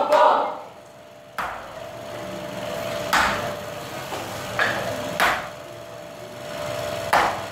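Five sharp knocks or thumps at uneven intervals, over a faint steady tone.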